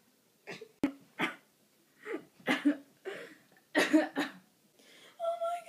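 A young woman coughing several times in short fits, then breaking into a high, drawn-out crying wail near the end.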